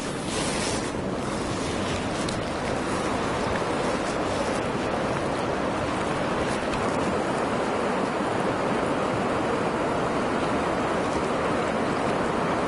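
Fast-flowing mountain river rushing past the bank, a steady, even rush of water.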